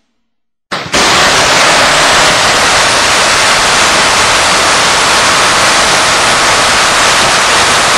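After a brief silence, an MG 42 machine gun starts firing a long, unbroken burst; its very high rate of fire runs the shots together into one steady, harsh ripping noise.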